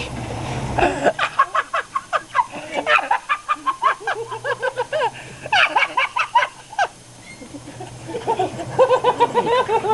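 People laughing hysterically in rapid, high-pitched bursts, with a short lull about seven seconds in.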